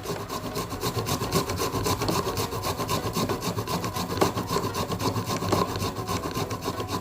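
Fresh ginger root being grated on a hand grater: a steady run of quick, even rasping strokes.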